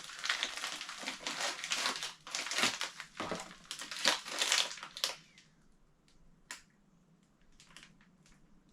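Product packaging crinkling and crackling as it is handled for about five seconds, then a few faint clicks and taps.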